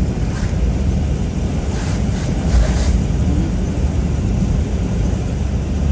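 Steady low road and engine rumble heard inside a moving car, with tyre hiss on wet asphalt. The hiss swells briefly at the start and again a couple of seconds in, as oncoming vehicles pass.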